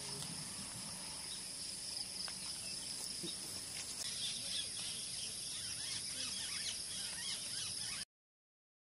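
Steady shrill drone of an insect chorus in tropical forest, with scattered bird chirps growing busier from about halfway through; the sound cuts off abruptly shortly before the end.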